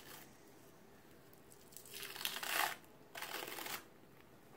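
Transparent adhesive film dressing (Tegaderm) being peeled off the skin: two short noisy peels, each under a second, about two seconds in and again just after three seconds.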